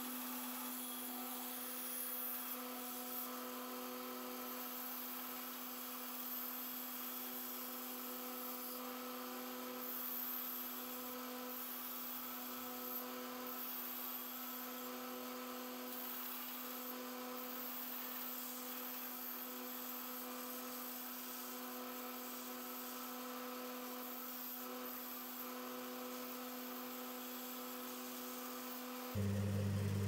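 Homemade bandsaw running with a steady hum while its blade cuts a small piece of wood.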